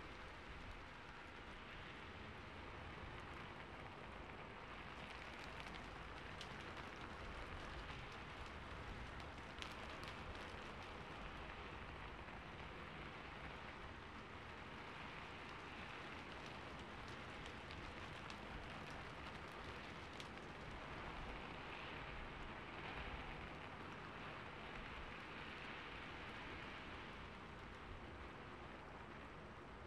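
Steady rain falling, with the ticks of many individual drops heard through the hiss.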